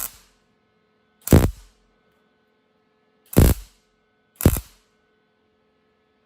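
Wire-feed (MIG) welder laying short stitch welds on thin sheet-steel body panel: four brief crackling bursts one to two seconds apart, with a faint steady hum between them.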